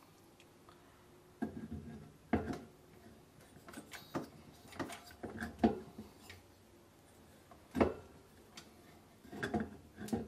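Irregular clicks and knocks of metal parts being handled on a small lawnmower engine as the flywheel and keyway are worked on and off the crankshaft. The knocks start about a second and a half in, with the loudest around the middle.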